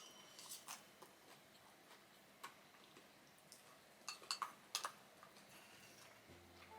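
Near silence broken by a few faint, sharp clicks, with a quick cluster of four about four seconds in.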